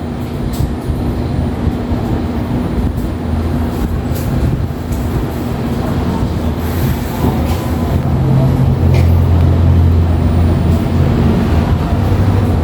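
A steady low motor hum with a few fixed tones, growing louder about eight seconds in.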